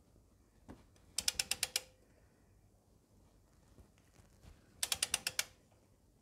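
Socket wrench ratchet clicking in two quick runs of about eight clicks each, about a second in and again near five seconds, as the handle swings back between strokes while tightening a spin-on oil filter with a filter socket.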